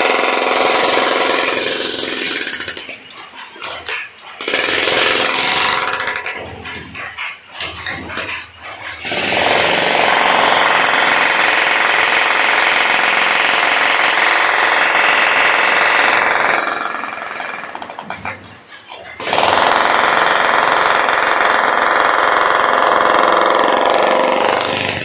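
16 kg demolition breaker hammering into a concrete ceiling. It runs in long bursts, stopping and restarting several times, with dust and chips falling from the hole.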